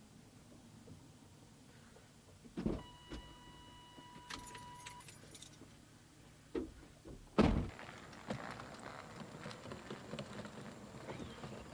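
Sounds inside a car: a click, then a steady electronic tone for about two seconds, with keys jangling over it. About seven seconds in comes a loud thunk like a car door shutting, followed by rustling and handling noise.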